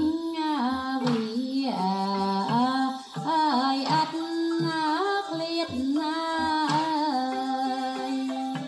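Traditional Cambodian music for Apsara dance: a high melody line that slides and bends between held notes, over low drum strokes.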